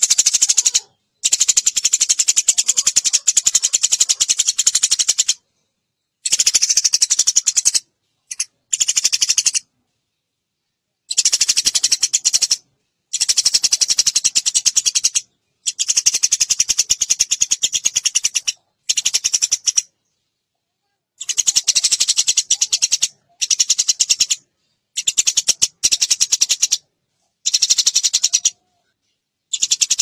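Eurasian tree sparrow chirping in fast, dense runs of chirps, in bursts of one to four seconds that start and stop abruptly with short silent breaks between them.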